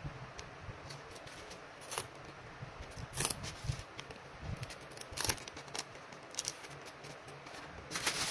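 Hands handling cardboard, masking tape and bubble wrap: scattered rustles, taps and small crackles, with a denser crinkle of bubble wrap near the end.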